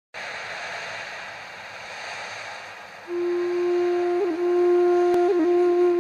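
Background music: a soft airy wash for about three seconds, then a flute comes in on a long held low note, ornamented with two brief dips in pitch.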